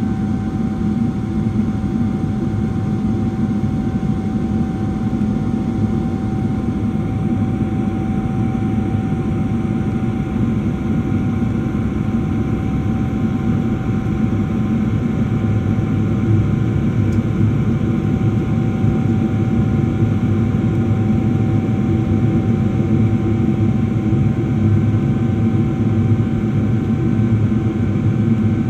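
Jet airliner cabin noise during climb-out after takeoff: the steady rush of the engines and airflow, heard from a window seat, with a faint steady whine held at one pitch.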